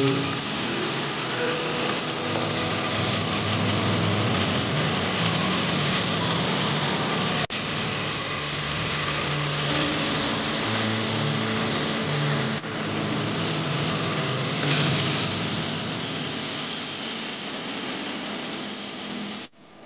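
Minced meat sizzling steadily in hot oil in an aluminium pressure cooker, with a low steady hum underneath; the sizzle turns brighter about three-quarters of the way through.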